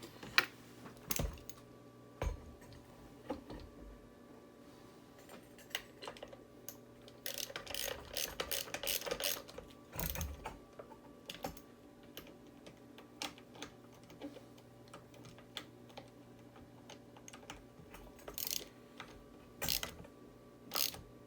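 Hands working small plastic parts and wiring: scattered clicks, taps and rattles, with a run of quick clicking about seven to ten seconds in.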